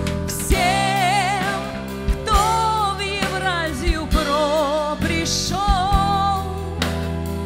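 Song: a singer holds melodic lines with vibrato over a steady backing track.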